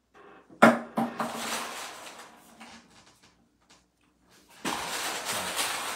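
Handling noise: a sharp knock and a second clack about a second in, then rustling that fades out, and a longer rustle starting near the end, as items are picked and moved around on a table.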